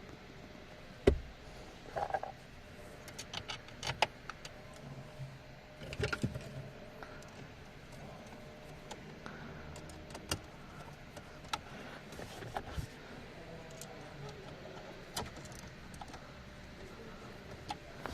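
Scattered clicks, knocks and light rattles of car dashboard trim and the head unit being handled and clipped back into place, with the loudest knock about a second in.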